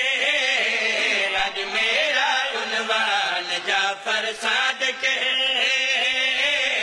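Men chanting a devotional Urdu–Punjabi qasida together into a microphone, the voices carrying one continuous melodic line that bends up and down.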